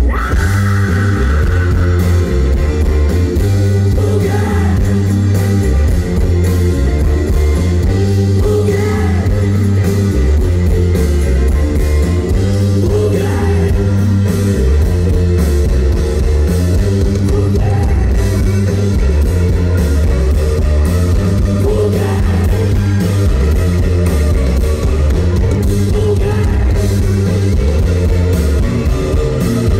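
Rock band playing live through a festival PA: electric guitars, bass and drums, with singing.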